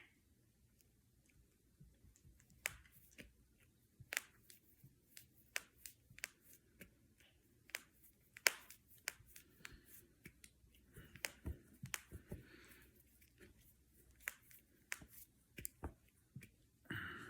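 Finger joints and knuckles cracking: an irregular run of sharp pops, a few a second at most, some much louder than others, starting about three seconds in.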